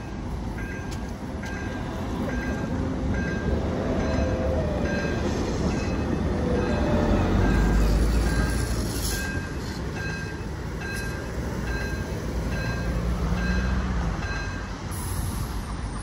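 Tram running on street track, its rumble swelling to a peak about halfway through, with faint motor whine. A short high electronic beep repeats at an even pace, about twice a second, until near the end.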